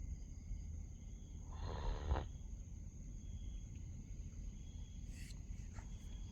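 Sleeping dog snoring: one noisy snore lasting about half a second, about a second and a half in, over a steady low rumble, with a brief click near the end.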